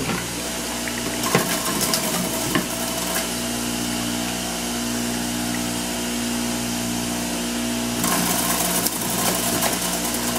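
Jack LaLanne Power Juicer's electric motor running steadily while juicing grapes, a whirring hum with a few sharp clicks in the first few seconds. About eight seconds in it grows louder and harsher for a couple of seconds.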